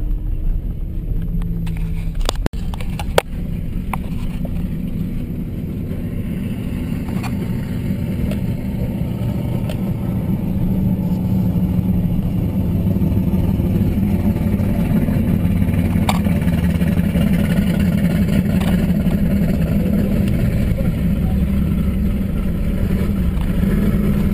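Steady engine and road noise inside a pickup truck's cab while driving, growing somewhat louder after several seconds. Two sharp clicks come about two and three seconds in.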